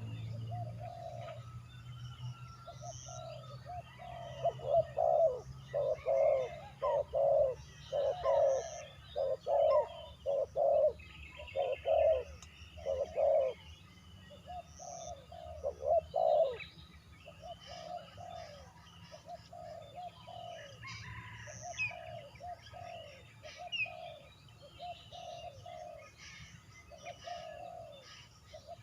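A dove cooing in repeated short phrases of quick notes, louder in the first half and softer later, while smaller birds chirp at a higher pitch.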